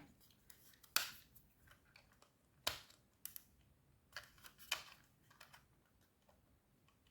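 Faint plastic clicks and scrapes as a computer mouse's plastic shell is handled and its internal clips are pushed on, a handful of separate ticks spaced about a second apart.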